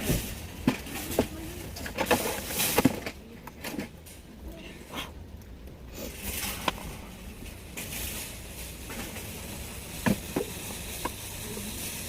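Close-up eating noises: scattered small clicks, rustles and mouth sounds as crumbs are picked up and eaten, busier in the first few seconds, with two sharper clicks near the end.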